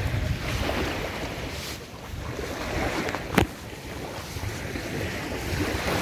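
Small waves washing onto a sandy shore, with wind buffeting the microphone in a low rumble. A single sharp click about three and a half seconds in.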